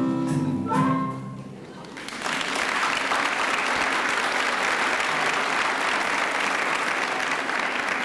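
The last notes of a song, then an audience applauding steadily from about two seconds in.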